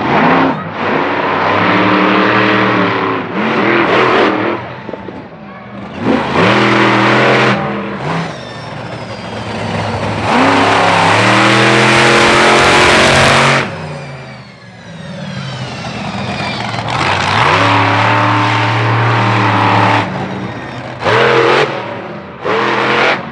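Monster truck engine revving hard in repeated throttle bursts, its pitch climbing and dropping with each one. The longest and loudest full-throttle pull comes about ten seconds in.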